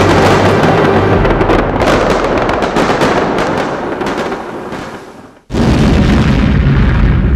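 Show soundtrack of booming, crackling firework and explosion effects that fade out over several seconds. It cuts off suddenly about five and a half seconds in and is replaced at once by a loud, low-pitched noise.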